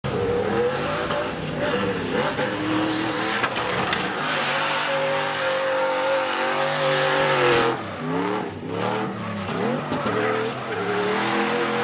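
Drift car's engine held at high revs while the tyres squeal through a long sideways slide. About eight seconds in, the revs drop and climb back up a few times, with short tyre chirps, before settling high again.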